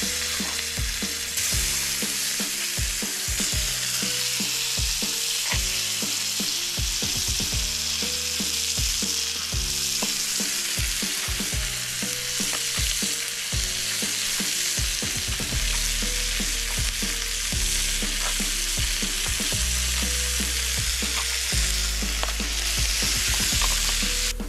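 Meat frying in a hot pan, a loud steady sizzle, with occasional light clicks.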